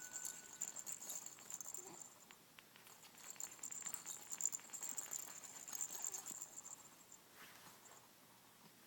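Faint rattling with soft clicks, in two spells: through the first second or so and again from about three to six seconds in, then nearly quiet.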